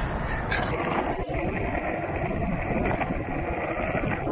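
Street traffic: cars driving past, giving a steady rush of tyre and engine noise.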